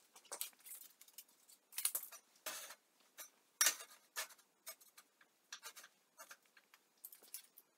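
Scattered light clinks, taps and short scrapes of steel parts and tools being handled on a perforated steel welding table, irregular, with the sharpest clink about halfway through.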